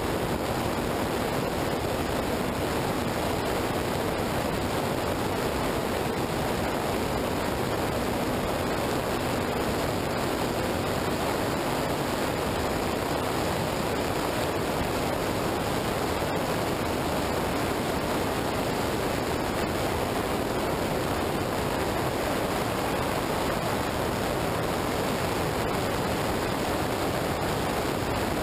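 Steady rushing wind and wet-road tyre spray at highway speed, heard through a low-mounted action camera's microphone on a motorcycle, with no break or change.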